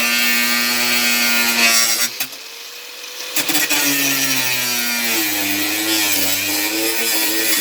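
Electric cutting tool running and cutting into sheet metal with a steady motor whine. It drops away for about a second after two seconds in, then comes back with the pitch sagging and wavering as the tool is loaded in the cut.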